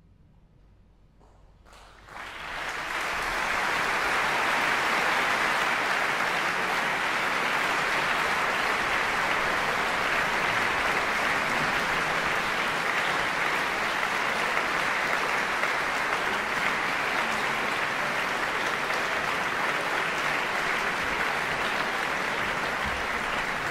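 Large audience applauding, breaking out about two seconds in after a brief hush at the end of the piece and holding steady.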